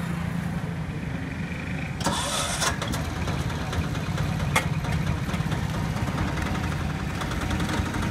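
An engine idling with a steady low drone, with a short hiss about two seconds in and a single sharp click a couple of seconds later.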